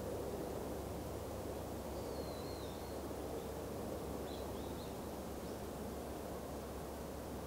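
Steady distant rumble of a long container freight train rolling along the line, mixed with faint road traffic. A small bird gives two short wavering chirps, about two seconds in and again about four and a half seconds in.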